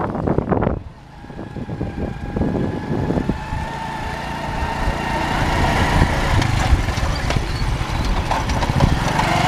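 Motorcycle engine running steadily while riding, with a low rumble and a faint engine whine that slowly grows louder. Wind buffets the microphone loudly for about the first second.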